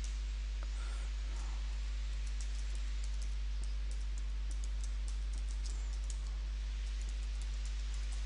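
Light, irregular clicks of typing on a computer keyboard, over a steady low electrical hum.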